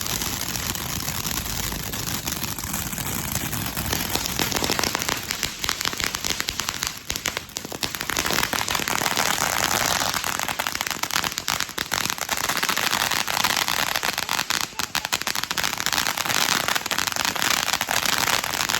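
Consumer grand-finale firework going off in a dense, continuous crackle of many small rapid pops. It thickens about four seconds in and is densest around the middle.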